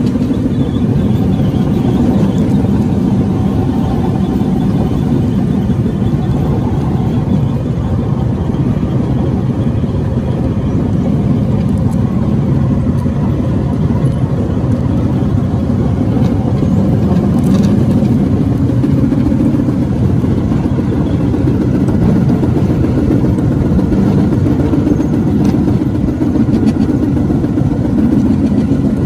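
Bamboo train (norry) under way, its small petrol engine running steadily under a continuous low rumble.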